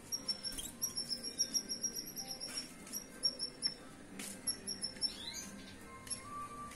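Young canary, about four months old, chirping in quick runs of short high notes with a rising whistle near the end: the early song of a bird that has only just begun to sing. A few sharp clicks sound in between.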